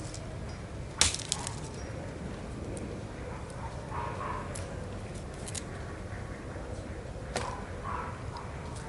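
Machete chopping and cutting into a sugarcane stalk: a sharp chop about a second in, another near seven and a half seconds, and a few lighter cuts and clicks between.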